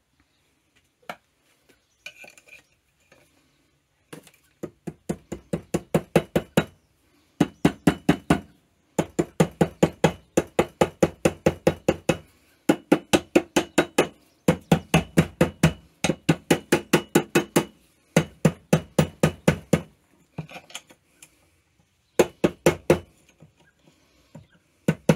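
Wooden mallet hammering in quick runs of about six blows a second, with short pauses between runs, on a 1987 Tomos A3 moped engine's clutch assembly to knock the stuck clutch drum off its shaft. A few light single taps come first.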